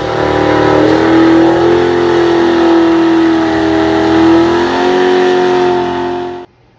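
A car engine held at high revs during a burnout, its pitch nearly steady with slight wavering. It cuts off suddenly near the end.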